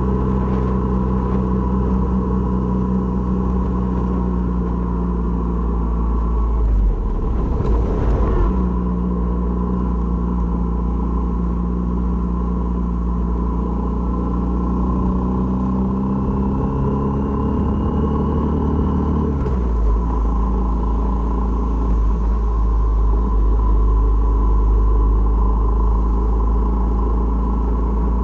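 Honda MSX125's single-cylinder four-stroke engine running while riding, over a steady low rumble. Its pitch climbs slowly with speed and changes abruptly twice, once about a third of the way through and again about two-thirds of the way through, as at gear changes.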